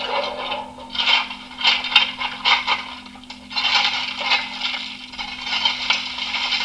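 Digital sound function of a Trix H0 model DB class 44 steam locomotive playing coal shovelling and the firebox: separate shovel scrapes and rattles about a second apart, turning into a denser, continuous scraping rush from about three and a half seconds in, over a faint steady hum.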